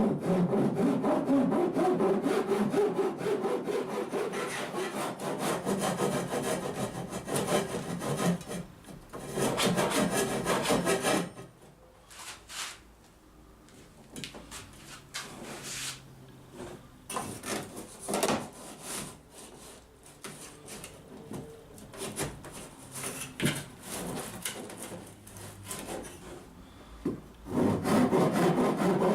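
A saw cutting through a wooden bilge runner on a boat hull. There is a long spell of sawing, then a quieter stretch of scattered knocks and scrapes, and the sawing starts again near the end.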